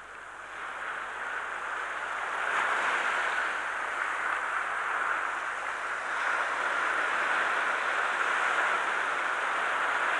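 Small waves breaking and washing up the beach in a steady rushing surf, swelling in over the first couple of seconds.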